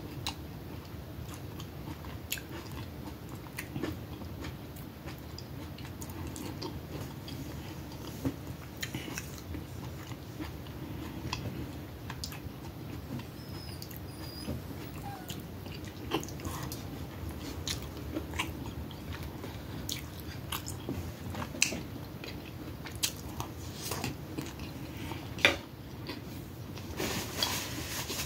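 Close mouth sounds of eating smoked sausage and tomato: biting and wet chewing with many short clicks, over a steady low hum. Near the end comes a soft rustle, likely a paper napkin being handled.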